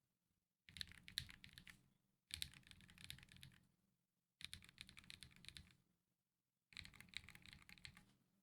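Typing on an LM60 v2 custom keyboard with Akko Matcha Green switches, JTK Emerald ABS keycaps and an FR4 plate, in its stock state without any dampening mods. The typing comes in four short bursts of quick key clicks, with brief pauses between them.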